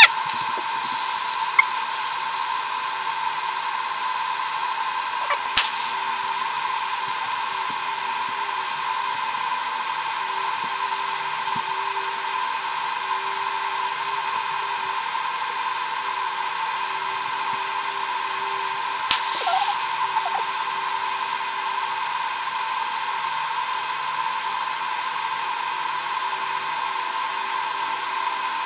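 TIG welding arc on steel, running as a steady, unbroken hum with a constant tone. Two brief clicks come through, about five and nineteen seconds in.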